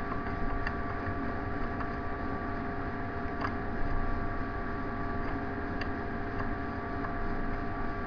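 Steady electrical hum with a hiss behind it, and a few faint clicks.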